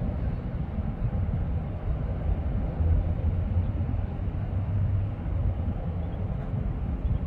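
Steady low rumble of a twin-engine jet airliner on final approach.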